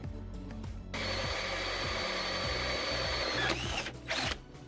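Cordless drill boring a hole through a PVC deck board with a large bit. It starts suddenly about a second in, runs steadily with a high whine, eases off, then gives a second short burst near the end. Background music underneath.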